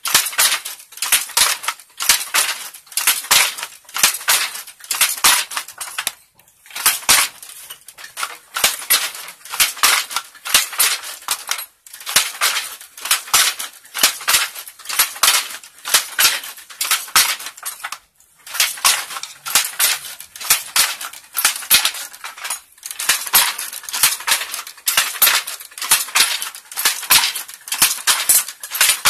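Wooden hand loom in use: a steady, fast clatter of wood knocking on wood as the shuttle is thrown and the batten beats in the weft, a couple of knocks a second. It breaks off briefly about six, twelve and eighteen seconds in.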